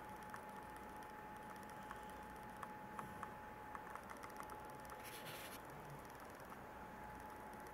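Quiet room tone with a faint steady high whine, scattered soft clicks, and a short rustle about five seconds in.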